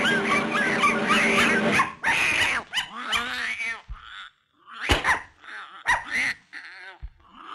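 Cartoon sound track: a loud, dense stretch of music for about the first two seconds, then a cartoon puppy's short growls and whimpers, voiced by a performer, broken by a few sharp knocks.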